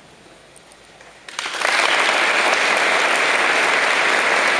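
Audience applauding, breaking out suddenly about a second in and holding as steady clapping.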